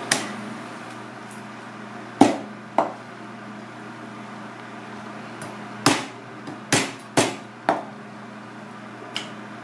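A kitchen knife knocking and chopping against a plastic cutting board while a lionfish is filleted: about eight sharp, short knocks at uneven intervals, the loudest about two seconds in, with a cluster between six and eight seconds.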